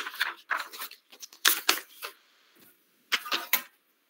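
Three short clusters of rustling and clicking handling sounds, with quiet gaps between them.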